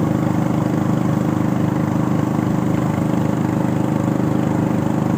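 Small boat engine running at a steady speed, an even low chug that does not change, heard from aboard the wooden boat as it moves along.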